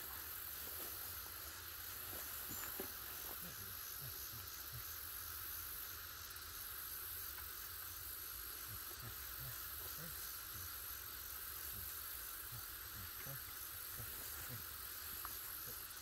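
Steady, continuous chorus of insects, high-pitched and unbroken, with scattered faint soft thumps and rustles.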